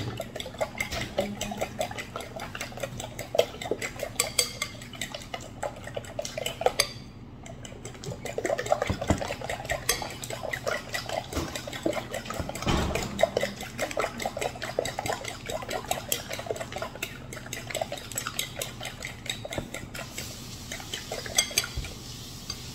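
A fork beating raw eggs in a glass mixing bowl: rapid, continuous clinking and tapping of the tines against the glass, with a brief lull about seven seconds in.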